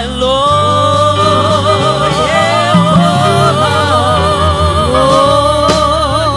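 Live gospel music: singers hold long, wavering notes with heavy vibrato over a steady bass line.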